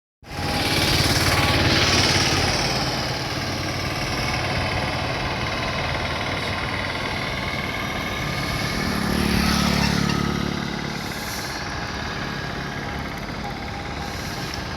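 Motor vehicle engine running steadily with road noise. It is louder for the first couple of seconds and swells again with a deeper hum around nine to ten seconds in.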